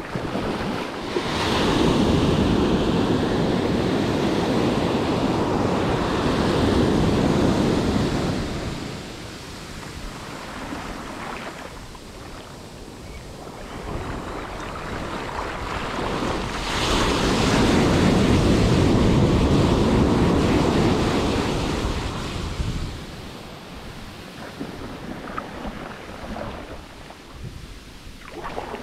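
Ocean surf breaking and washing up the beach, with wind buffeting the microphone. The wash swells loud twice, each time for about six seconds, and eases in between.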